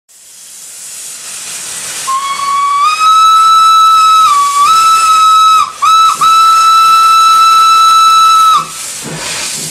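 Steam locomotive whistle blown from close by: one long, loud single-note blast lasting several seconds, with a short dip in pitch and two brief breaks a little past the middle. It sounds over a hiss of steam that builds up in the first two seconds.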